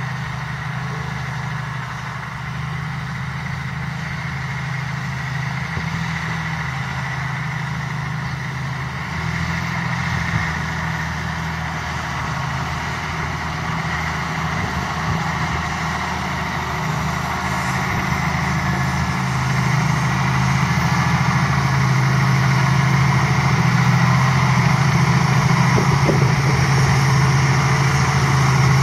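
Valtra T174's 7.4-litre six-cylinder diesel engine running steadily under load while pulling a five-furrow reversible plough through the soil. It is a continuous low drone that grows louder from about two-thirds of the way through.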